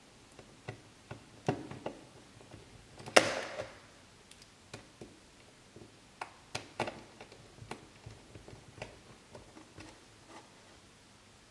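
Scattered small clicks and taps of hands handling screws and parts around the corners of a laptop screen panel as its mounting screws are put back in, with one louder knock about three seconds in.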